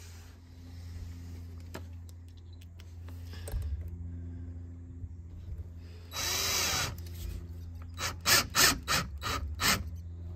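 Cordless drill driver running for about a second, driving a screw into the mounting plate of a steel barrel bolt on a wooden door, its motor pitch rising and falling. Near the end it gives a quick run of about six short, sharp bursts, roughly three a second, as the screw is driven home.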